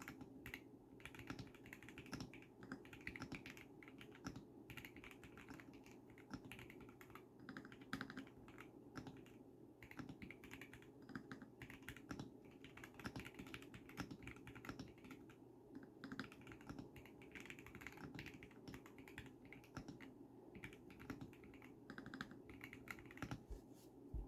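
Continuous fast typing on a Zuoya GMK67 mechanical keyboard with lubed Akko Pink switches, PBT Cherry-profile keycaps and soundproofing foam: a steady, irregular stream of soft key clacks.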